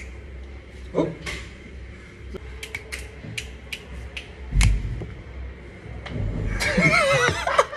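Scattered sharp clicks and knocks of things being handled, with a dull thump about four and a half seconds in and a man's voice talking near the end.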